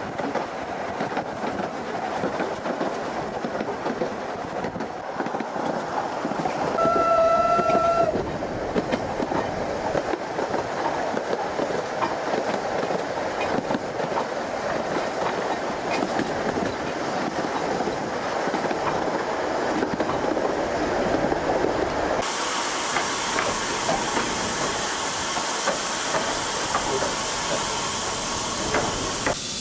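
Isle of Man Railway narrow-gauge steam train running, its carriage wheels clattering over the rail joints. The locomotive's steam whistle sounds once for about a second, about a quarter of the way in. About two-thirds of the way through a steady hiss joins the clatter.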